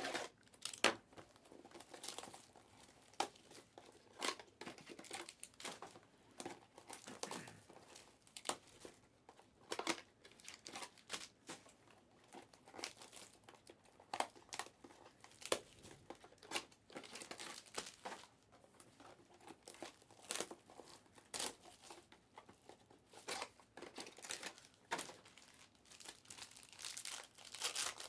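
Plastic wrapping crinkling and tearing in irregular crackles as sealed trading card packaging is opened by hand.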